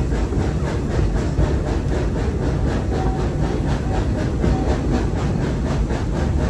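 Walt Disney World Railroad steam train running: a steady rumble with a regular beat of about four strokes a second.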